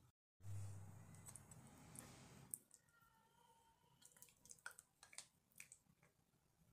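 Faint clicks and soft squishes of a metal spoon scooping into soft mashed potato and touching a ceramic plate, scattered through the second half.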